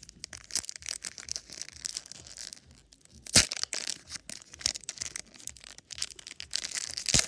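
Pokémon booster pack's foil wrapper being torn open and crinkled: a dense, high crackling with two louder sharp cracks, one about three and a half seconds in and one near the end.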